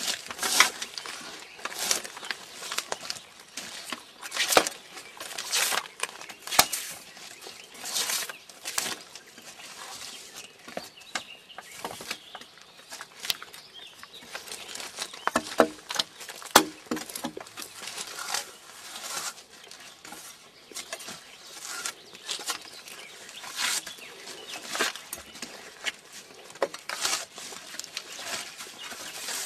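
Drawknife blade scraping and peeling bark off a round log, in repeated rasping strokes about one a second, uneven in strength, with bark strips tearing away.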